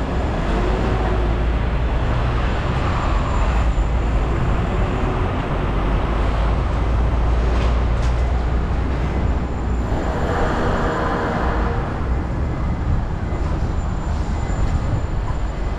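City street traffic: a continuous low rumble of vehicles. About ten seconds in, a louder vehicle passes with a pitched whine.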